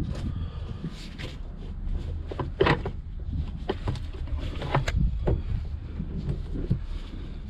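Tools and parts being handled during repair work: irregular clicks and knocks, a couple of them sharper than the rest, over a steady low rumble.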